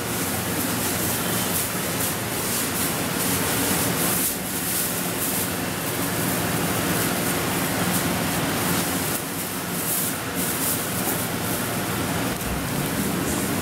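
Steady rushing noise with a low hum under it.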